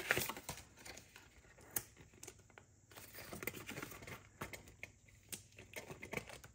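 Soft rustling of paper with scattered light clicks and taps as cash envelopes and placeholder cards are handled.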